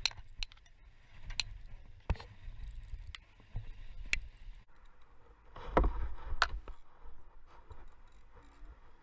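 Spinning reel being cranked through a lure retrieve, with scattered sharp clicks and taps from the reel and rod being handled, over a low wind-and-sea rumble. A little past halfway there is a louder rush of noise lasting about a second.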